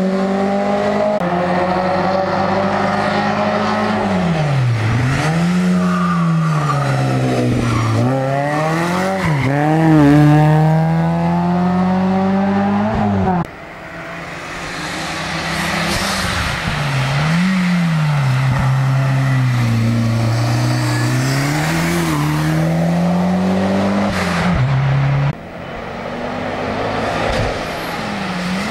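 Racing car engines accelerating hard uphill, the pitch rising and dropping back at each upshift. The sound drops away abruptly twice, about halfway through and near the end, then builds up again.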